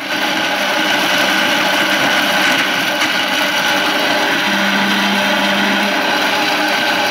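Electric grinder running steadily at full speed, grinding whole garam masala spices into powder in its glass jar.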